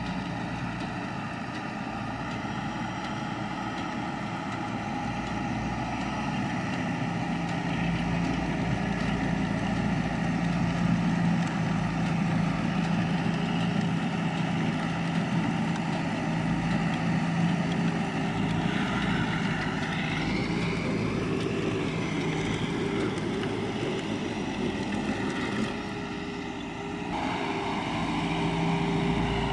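Landini 4-070 tractor's diesel engine running steadily as it tows a working manure spreader. A whine rises briefly about two-thirds of the way through, and the sound dips for a moment near the end.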